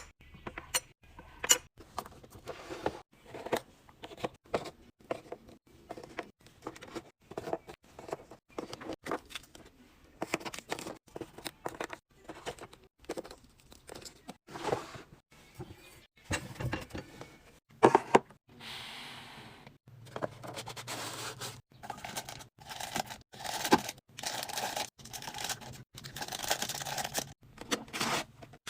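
Grocery packaging and food containers being handled while restocking a fridge: many short clicks and knocks as items are set down, with plastic crinkling and rustling in between.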